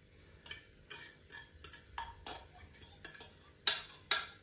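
A metal fork clinking and scraping against a cooking pot as noodles are scraped out into a bowl: a string of irregular short clinks, two of them louder near the end.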